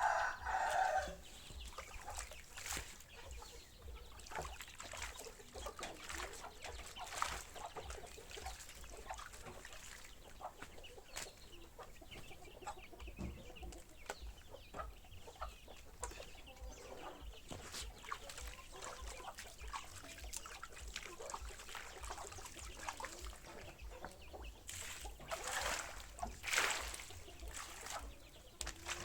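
Chickens clucking, with louder calls at the very start and again about 25 seconds in, over scattered scratchy strokes of a brush scrubbing.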